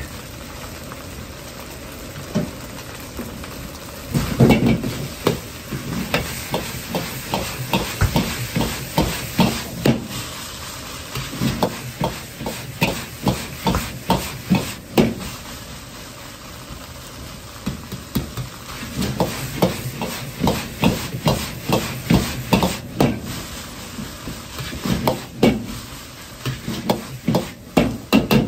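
Metal wok ladle scraping and clanking rapidly against a carbon-steel wok as egg fried rice is stirred and tossed, over the steady hiss of the gas wok burner and the rice sizzling. The clanking comes in two long runs, with a short lull in the middle.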